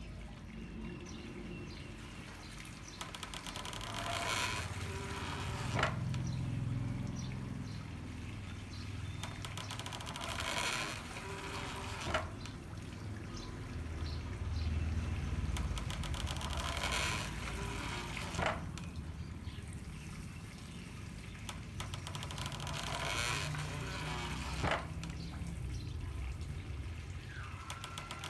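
Handmade water-powered corn mill working in a steady cycle with water flowing steadily throughout. About every six seconds a rush of pouring water is followed a second or so later by a sharp knock of the mill's beat, four times.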